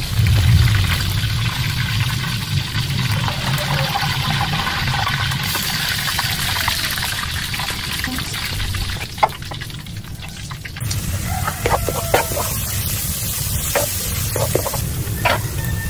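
Whole red snapper deep-frying in a wok of hot oil, a steady loud sizzle over a low hum. About eleven seconds in the sizzle thins, and a spatula knocks and clicks a few times against a pan.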